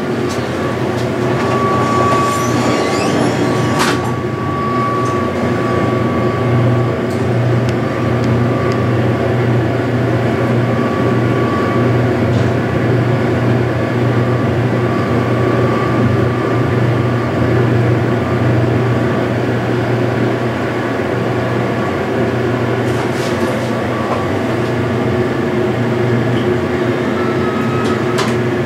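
Original US Elevator hydraulic elevator running through a trip: a steady low hum with a thin high whine that comes and goes, and a few knocks from the car doors near the start.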